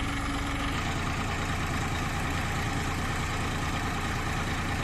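Heavy diesel machinery engine running steadily with an even low hum.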